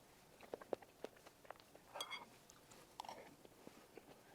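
Faint close-miked chewing of soft, milk-soaked strawberry cream cake: scattered small wet mouth clicks, a little stronger about two and three seconds in.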